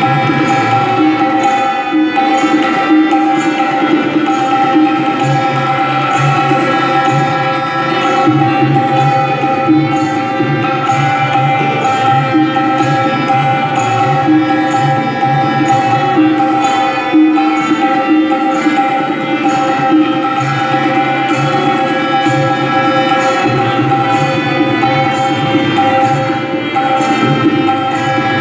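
Tabla being played in a steady rhythmic pattern of sharp strokes over a sustained melodic accompaniment holding steady pitches, in the style of a solo with lehra backing.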